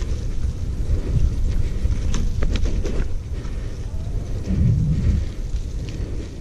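Wind buffeting the microphone of a camera moving fast along a dirt trail, a heavy rumble with a few sharp clicks and rattles about two to three seconds in.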